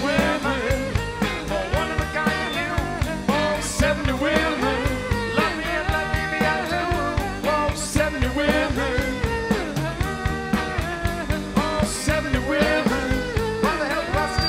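Live rock band playing an instrumental passage on electric guitars, electric bass and drum kit, with a cymbal crash about every four seconds.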